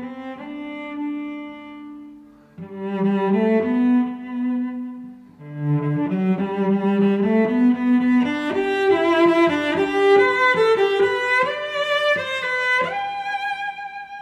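Background music of bowed strings, cello and violin, playing a slow melody in phrases with short breaks, growing fuller and higher in the middle and ending on a long held note.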